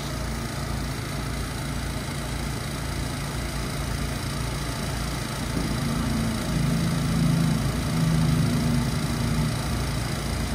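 Steady low mechanical hum and rumble, with a humming tone that swells in about halfway through and fades near the end.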